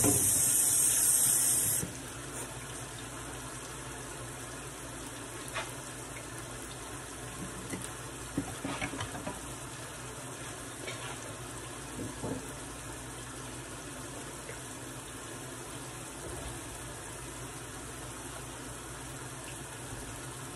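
Water runs from a tap for about the first two seconds and is shut off suddenly. After that, a steady low sizzle of ripe plantain slices frying in oil on a gas stove, with a few faint clicks and knocks.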